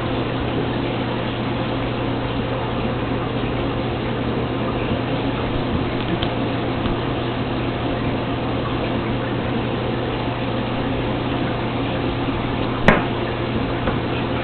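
Reef aquarium equipment running: a steady low pump hum under a constant wash of circulating water. A single sharp click near the end.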